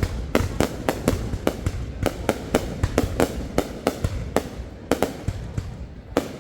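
Aerial fireworks bursting in a rapid run of sharp bangs, three or four a second, over a continuous low rumble, thinning out near the end.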